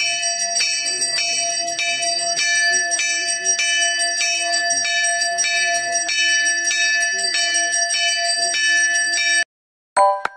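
Temple bells ringing in steady, even strokes, about two a second, with bright overlapping tones, as puja is offered to Ganesha. The ringing cuts off suddenly near the end, and a short chiming tune begins.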